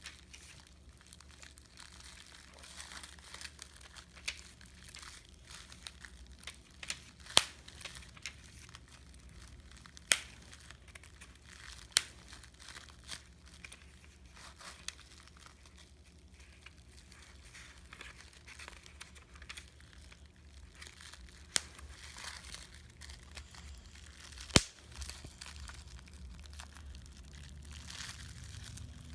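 Plastic bubble wrap being crinkled and squeezed by hand, with a sharp pop now and then as single bubbles burst, about five loud pops in all.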